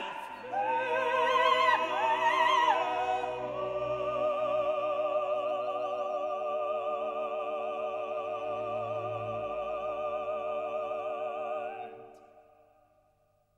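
Background music: operatic singing with orchestral accompaniment, a few short phrases and then one long held note with a wavering vibrato, fading out about twelve seconds in.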